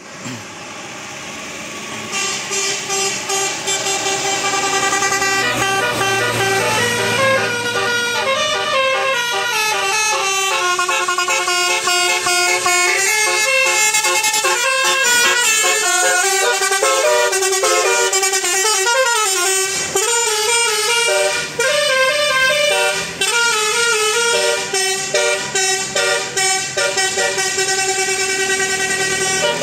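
Multi-tone 'telolet' air horn on a Jetbus 5 coach playing a tune: a long run of quick, stepped notes.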